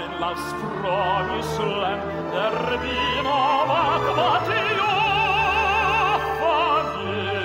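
Male operatic singer holding long notes with wide vibrato over a symphony orchestra with strings.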